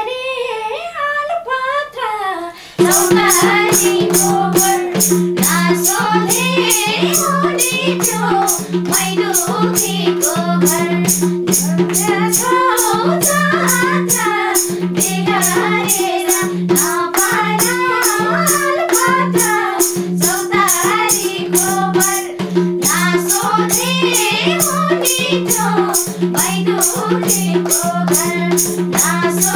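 Nepali lok dohori song. A woman sings alone at first; about three seconds in, a madal drum and a steady rhythmic accompaniment with a held note join, and the singing goes on over the beat.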